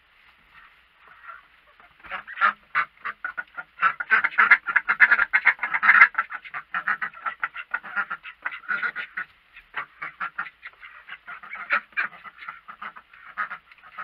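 A group of domestic ducks quacking: a few faint calls, then from about two seconds in a rapid run of short quacks that is busiest and loudest a few seconds later and then goes on more sparsely.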